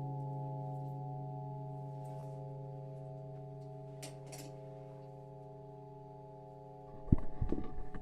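Singing bowl ringing with a steady, many-toned hum that slowly fades away. About seven seconds in, a sudden thump, followed by a run of knocks and bumps.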